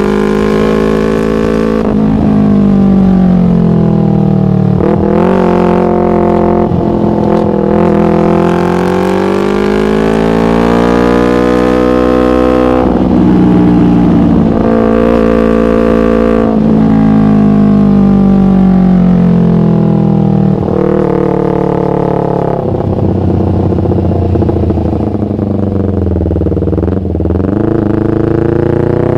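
Yamaha MT-25's parallel-twin engine running through a Shadux racing exhaust, its pitch rising and falling in long, slow swells, with a few sudden drops in pitch.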